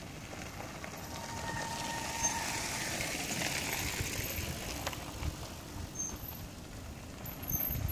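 Mountain bikes rolling down a loose dirt and gravel track, a rushing crunch of tyres that swells around the middle as riders pass. A faint steady whine runs for about a second starting a second in.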